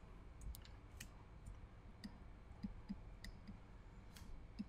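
Faint, irregular clicks and taps, about a dozen, from a stylus on a drawing tablet while words are handwritten.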